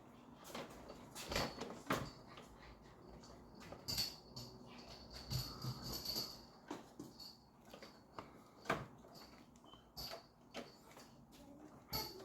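Scattered light clicks and knocks at irregular intervals over a quiet background.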